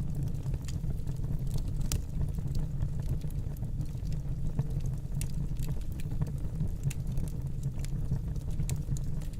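Wood fire burning in a fireplace: a steady low rumble of flames with irregular small crackles and pops.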